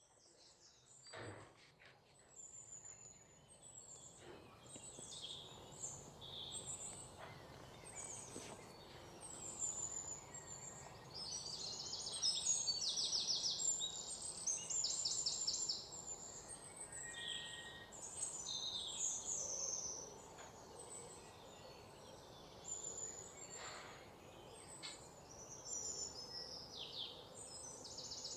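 Small birds chirping and singing, many short high calls overlapping, with fast trills of rapidly repeated notes near the middle and again at the end.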